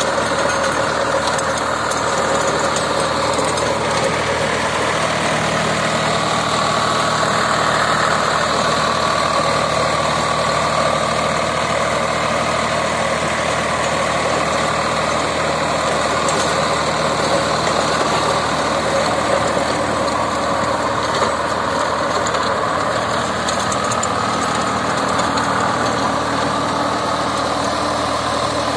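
Swaraj 744 tractor's three-cylinder diesel engine running steadily under load, driving a 2-metre Shaktiman rotavator as it tills the soil.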